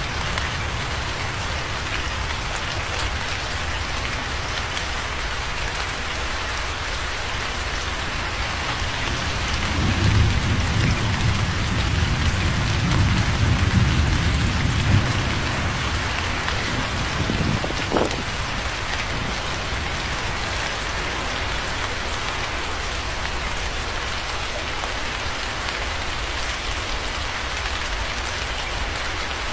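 Steady rain, with a low roll of thunder rumbling for several seconds from about ten seconds in, then a short sharp crack a little after the middle.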